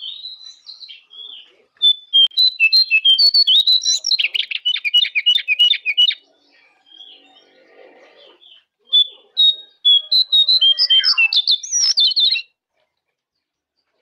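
Jongkangan songbird singing in rapid chirping phrases: a long run of quick notes, a pause, then a second run that stops about a second and a half before the end. It is a masteran recording, used as tutor song to get caged birds singing.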